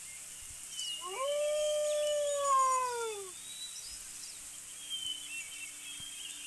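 One long howling animal call of about two and a half seconds, rising briefly at the start and then sliding slowly down in pitch, with faint high chirps around it.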